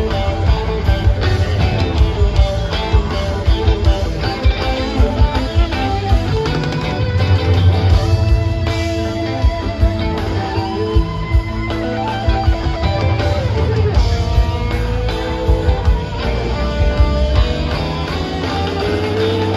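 Rock band playing live with no vocals: electric guitar lines, some bending in pitch, over bass and a steady drum beat.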